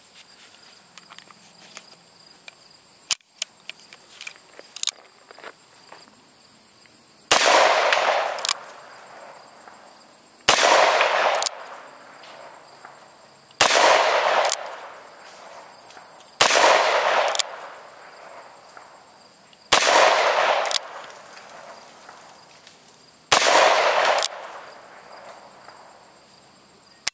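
Smith & Wesson .38 Special revolver firing six +P rounds, one shot roughly every three seconds, each a sharp report with a ringing echo tail. Before the shots come a few light metallic clicks as the loaded cylinder is closed.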